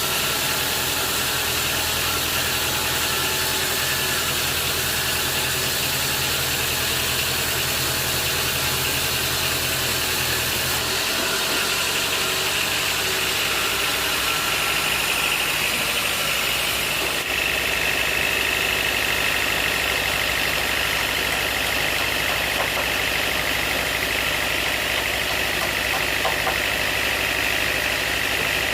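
Sawmill machinery running steadily with an engine-like drone and a high whine. The low hum changes abruptly about eleven seconds in, and the whine grows stronger about seventeen seconds in.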